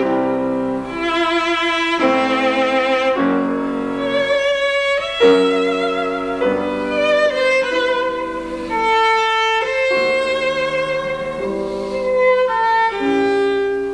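Slow classical-style music led by a bowed violin melody with vibrato over held chords, the notes changing about every second.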